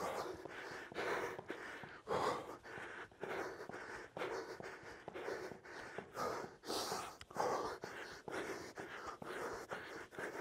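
A man breathing hard, gasping and puffing in a steady rhythm from exertion during fast mountain climbers, with light regular taps of feet on a rubber gym floor.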